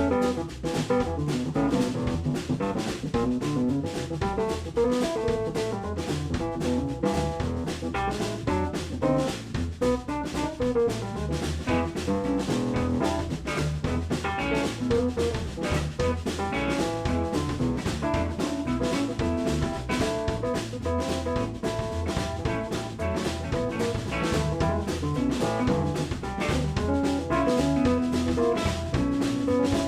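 Live blues band playing an instrumental break with drum kit, bass, electric guitar and keyboards, the drums keeping a steady driving beat.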